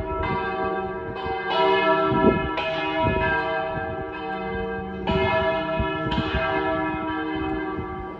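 Church bells ringing: a series of strikes at different pitches, each note ringing on and overlapping the next.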